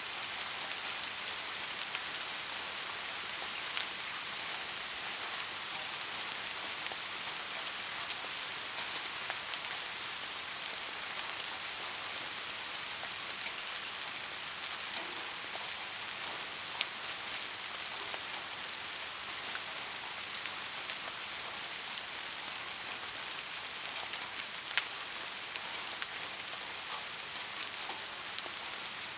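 Steady rainfall, an even hiss with a scattering of sharp drop ticks, the loudest about 17 and 25 seconds in.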